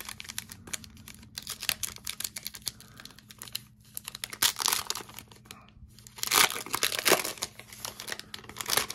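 Foil trading card pack being crinkled and torn open by hand, a dense crackling with louder bursts about four and a half seconds in and again between six and seven seconds.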